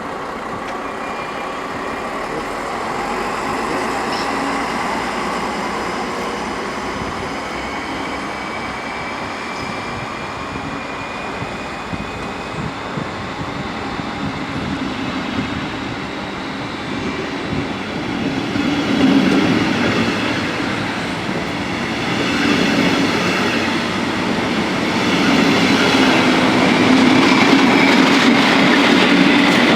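A train running on the track, a steady rumble with a thin high squeal that drifts in pitch, growing louder in the last ten seconds.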